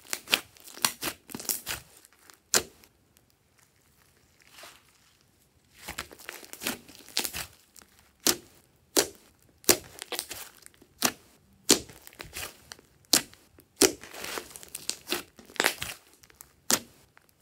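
Hands squeezing, pressing and stretching a large lump of glossy slime: a run of sticky pops and crackles as the slime sticks, pulls apart and is pressed together, with a short quiet pause about three to five seconds in.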